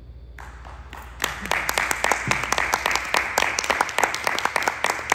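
Audience applause breaking out about a second in, many people clapping densely and steadily.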